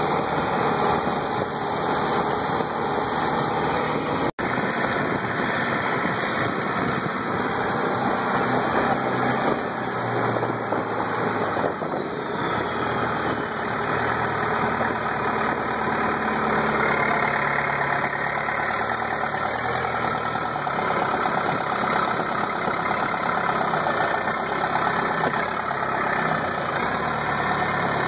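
Long-tail boat's engine running steadily with the boat under way, the sound dropping out for an instant about four seconds in.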